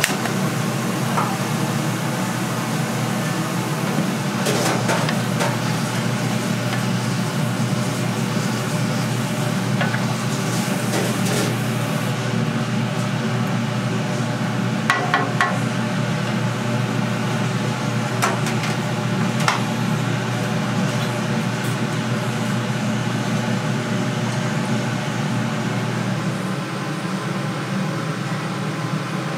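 Cooking sounds: a steady low fan-like hum under a hiss of sizzling, with a few short clinks of utensils now and then.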